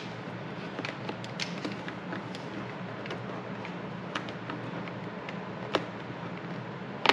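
Light handling noise of hands working inside an HJC RPHA 70 motorcycle helmet: scattered soft plastic clicks and rustles as the intercom wiring and liner are tucked in, with one sharper click about six seconds in, over a steady low hum.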